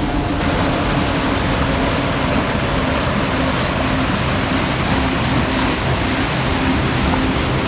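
Waterfall rushing water, a loud, steady, dense rush that fills in about half a second in.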